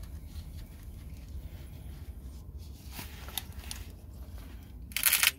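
Faint handling noises over a steady low rumble, then a short loud rustle about five seconds in.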